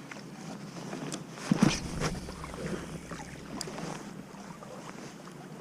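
Canoe on a river: a few hollow knocks and bumps against the hull about a second and a half in, over a steady hiss of water and wind.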